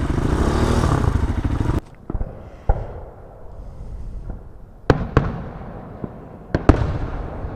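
A Honda CRF250L dirt bike's engine runs and is shut off about two seconds in. Then a fireworks display booms, with about six sharp bangs, some in quick pairs, each trailing off in a rumble.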